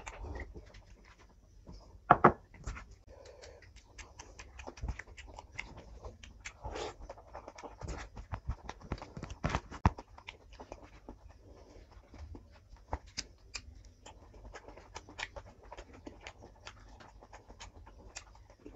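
A person eating rice and curry by hand: a run of small wet mouth clicks and smacks from chewing and mixing, with one louder sharp sound about two seconds in.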